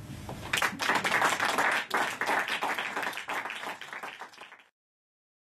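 Audience applauding, starting about half a second in, dense at first, then thinning and fading before it cuts off abruptly near the end.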